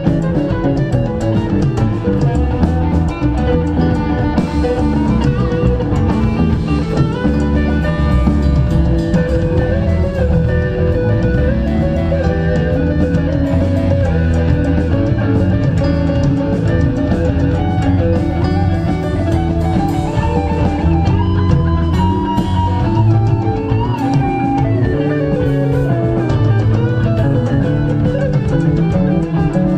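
Live rock band playing an instrumental jam: electric lead guitar lines over bass guitar and a drum kit.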